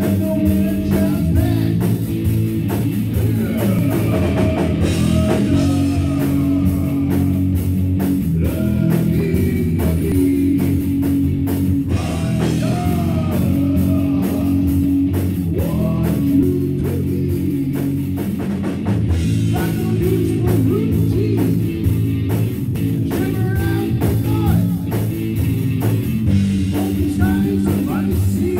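Rock music played by a band: drum kit keeping a steady beat under guitar, with singing over it.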